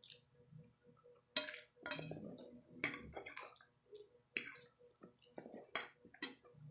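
Metal fork clinking and scraping against a ceramic plate while twirling spaghetti, about six sharp clinks, with wet chewing sounds between them.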